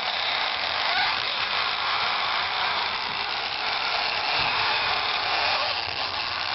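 BMC engine running with a steady, high-pitched whirring buzz: the noise the title says it makes.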